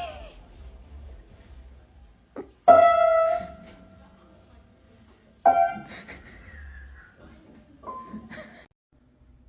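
Piano notes struck singly, a few seconds apart, each ringing out and fading.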